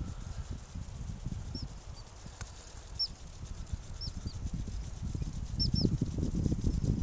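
Prairie dogs chirping at people passing by: short, very high chirps, about half a dozen scattered over several seconds, some in quick pairs. Wind rumbles on the microphone underneath and grows louder near the end.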